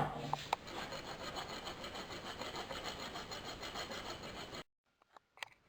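Rasp scraping over the surface of a lead pipe, a soft continuous filing noise that cleans the metal back for soldering. It cuts off abruptly about four and a half seconds in, leaving near silence with a couple of faint clicks.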